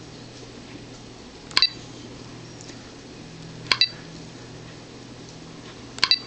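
Short, sharp touchscreen key clicks from a Teletype 7100 truck GPS as entries are tapped: one about a second and a half in, a quick double click near four seconds, and another double near the end, over a faint steady hum.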